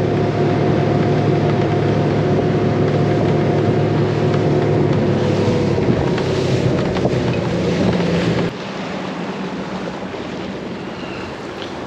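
Suzuki 300 V6 outboard running steadily at cruise, about 36 mph, with wind and water noise over it. About eight and a half seconds in, the engine sound drops away abruptly, leaving quieter wind and water noise with a faint hum.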